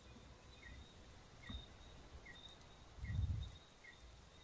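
Quiet room tone with a faint, short high chirp repeating evenly about every 0.8 seconds, and a soft low bump about three seconds in.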